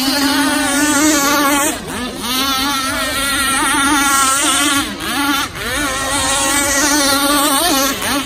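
Small two-stroke petrol engine of a 30cc RC racing boat running at full throttle as the boat skims across the water, a high steady whine whose pitch wavers constantly, dropping briefly a few times.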